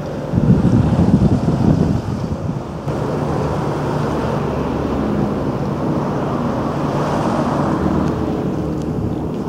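Wind buffeting the microphone in gusts, then from about three seconds in a steady low engine hum with wind and water noise.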